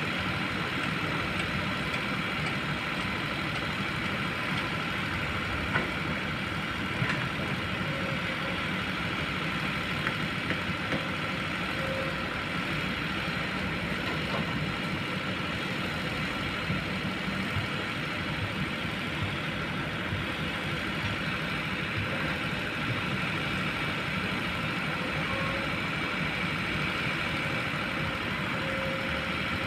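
Kobelco long-reach excavator's diesel engine running steadily, with a couple of light knocks about six and seven seconds in.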